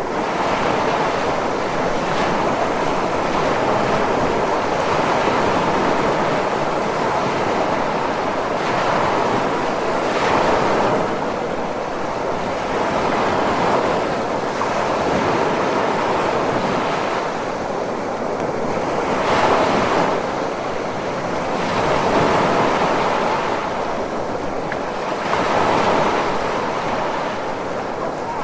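Ocean surf: a steady rushing wash of waves that swells every few seconds.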